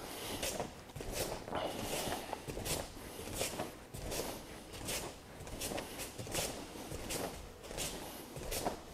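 Bare foot sweeping across a judo mat again and again in foot-sweep drills: a regular run of soft swishes, roughly one or two a second.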